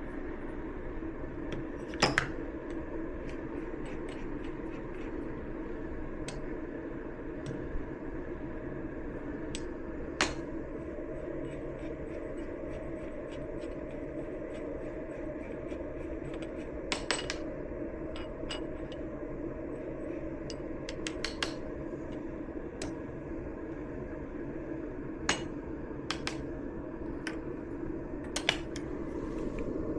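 Scattered clinks and taps of small metal and glass coffee gear being handled and set down, over a steady low hum.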